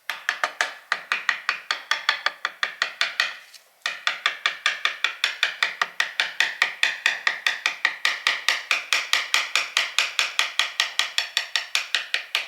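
Rapid, evenly spaced tapping strokes, about five a second, with a brief pause about four seconds in.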